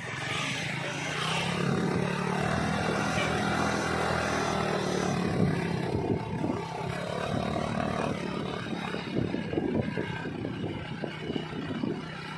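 A large bus's diesel engine running as it drives past, a steady low drone that grows louder about a second and a half in and falls away after about eight seconds.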